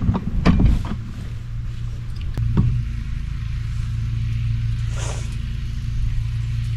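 Small engine running steadily at a constant speed, with a few knocks and clatters in the first three seconds.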